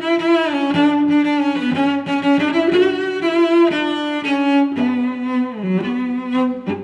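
Music: a slow melody on bowed strings, held notes with vibrato moving every half second or so.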